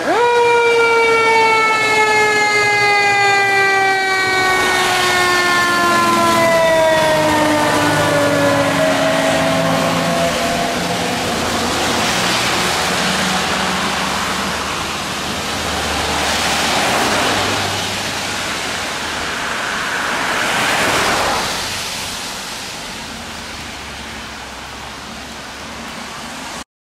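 A fire engine's siren starts abruptly and winds down in one long falling wail over about nine seconds as the truck passes. A rushing hiss of tyres on wet road follows, swelling three times as the engine and following cars go by, then fading.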